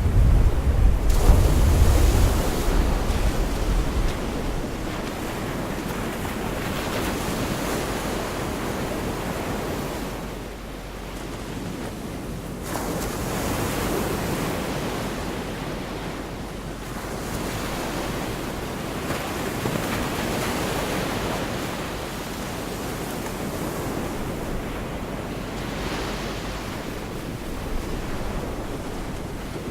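Gulf of Mexico surf breaking on a beach, swelling and ebbing every several seconds. Wind rumbles on the microphone in the first few seconds.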